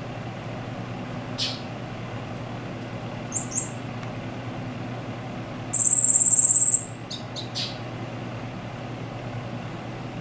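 Caged silil singing: a few short thin chirps, then a loud, high, rapid trill lasting about a second in the middle, followed by a couple of short notes. A steady low hum runs underneath.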